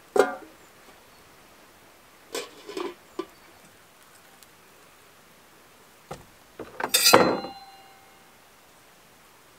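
Kitchenware handled: a metal kettle set down with a clunk on a stone stove at the start, a few soft knocks two to three seconds in, then about seven seconds in a quick cluster of clinks ending in a loud metallic clink that rings on briefly.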